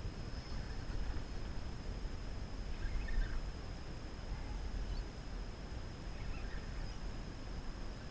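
Muffled low rumble and hiss picked up through a GoPro's sealed waterproof housing, with a faint steady high whine and a few faint short chirps about three and six seconds in.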